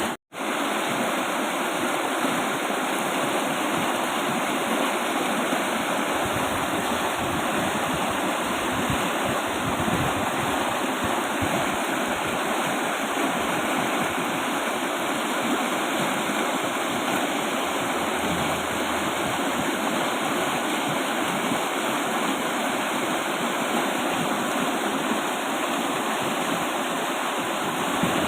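Fast-flowing river water rushing in a steady, unbroken wash, with a momentary drop-out just after the start.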